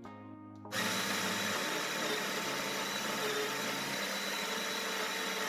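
Baratza Sette 30 burr grinder switching on under a second in and grinding a dose of espresso beans: a loud, steady grinding noise with a thin high motor whine.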